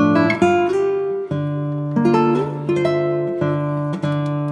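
Background music: plucked-string instrumental, a run of single notes and chords.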